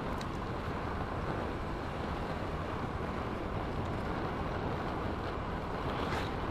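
Steady wind rush over the microphone of a moving Honda Vario 125 scooter, mixed with the low running noise of its engine and tyres on the road. About six seconds in, a second scooter passes close alongside.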